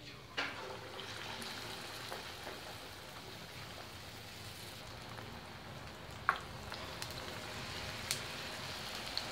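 Besan-battered potato chops deep-frying in hot oil: a steady sizzle that rises about half a second in as the first chop goes into the oil. A couple of sharp ticks come later as more chops are added.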